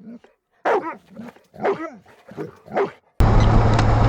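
A dog barking, five or so short barks in quick succession, then a sudden cut to steady vehicle road noise with a constant low drone for the last second.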